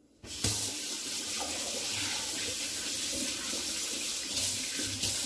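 A sink tap is turned on about a third of a second in, then water runs steadily into the sink while hands are washed under the stream.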